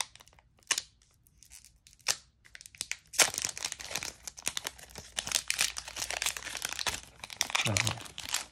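Foil wrapper of a Pokémon Battle Styles booster pack being torn open: a few separate sharp tearing crackles at first, then dense continuous crinkling from about three seconds in as the wrapper is pulled apart around the cards.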